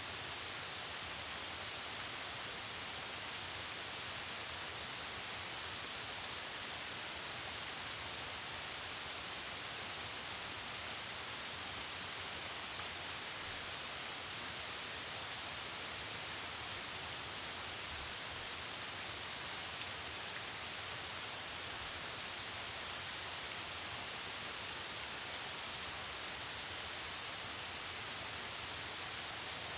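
Mountain waterfall rushing down rocks: a steady, even hiss of falling water that holds the same level throughout.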